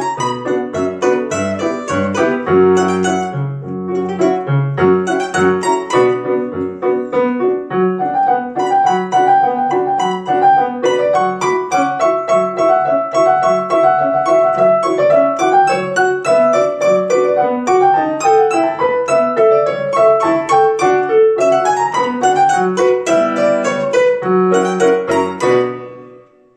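Piano playing a polka, a melody over a bass line, ending on a final chord that dies away near the end.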